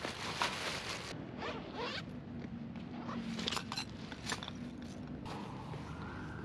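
Zipper of a motorcycle seat bag being pulled open in a series of short rasping strokes, with clicks and rustling of nylon gear bags as they are handled.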